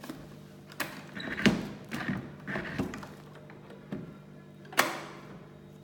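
A series of knocks and clicks from a new wooden scale-changer harmonium being handled and its parts set in place, loudest about one and a half seconds in and again near the end.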